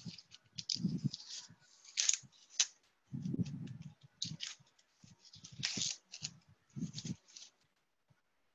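Hands taking apart a mold assembly: scattered light knocks and bumps mixed with brief scraping and rustling, coming in irregular spurts with short pauses between.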